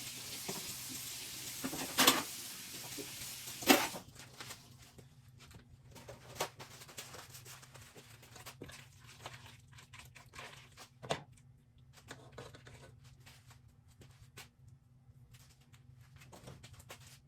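Kitchen handling sounds: a steady sizzling hiss with two sharp knocks, then the hiss stops about four seconds in and only scattered small clicks and rustles remain.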